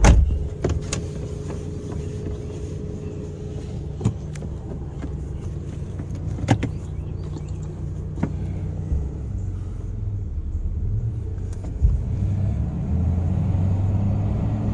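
Toyota's engine running steadily, heard from inside the cab, with scattered sharp clicks and knocks from a hand-cranked manual window winder and other handling of the cab controls.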